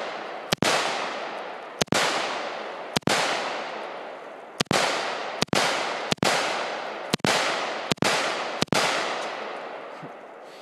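Gunshots fired one at a time, nine in all at roughly one a second with uneven spacing. Each has a long echo that fades away.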